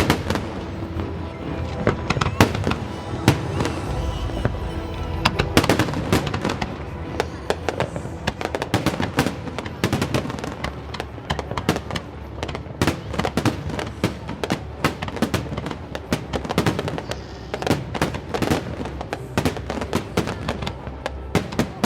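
Fireworks display: a dense, rapid stream of sharp bangs and crackles, with music playing alongside.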